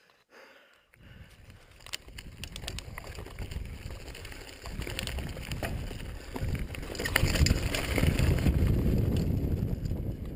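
Mountain bike riding fast over a dirt trail: wind rumbling on the camera's microphone, with clicks and rattles from the bike. It sets in about a second in and grows louder toward the end.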